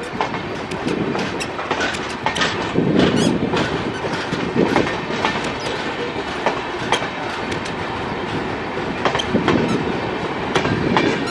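Express train's LHB passenger coaches rolling away at low speed, their wheels clicking and clattering irregularly over rail joints and points as the train pulls out of the station.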